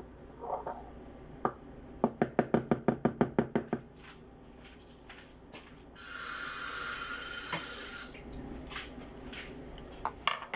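Kitchen handling noises while preparing a smoothie. About two seconds in comes a quick run of about a dozen sharp clicks or taps. Later there is a hiss lasting about two seconds, and near the end a few knocks.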